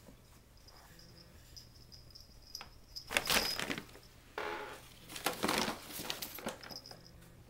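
Brown paper shopping bag crinkling and rustling as kittens wrestle in and on it. There are two main spells, one about three seconds in and a longer one from about four and a half seconds in, with lighter scratching of paper between them.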